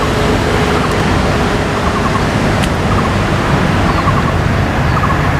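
Steady loud rushing noise with a faint low hum. A short chirp of four or five quick notes repeats about once a second.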